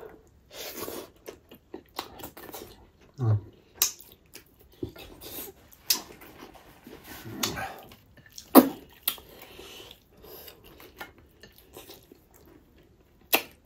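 Close-up eating sounds of pork trotters with rice: wet chewing and lip smacks, broken by scattered sharp clicks, one much louder smack about two-thirds of the way through.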